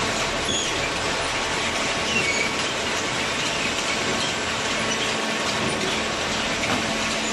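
Hydraulic top-load cardboard baler running: a steady mechanical noise with a low hum and scattered short, high squeaks.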